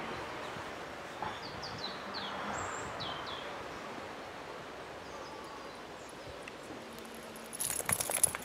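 Garden ambience with a bird giving several short, falling chirps about two to three seconds in. Near the end comes a burst of crackling rustle as a German shepherd pushes its head into a hedge.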